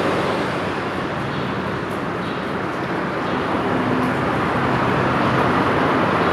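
River water rushing steadily over rocks, a continuous even noise.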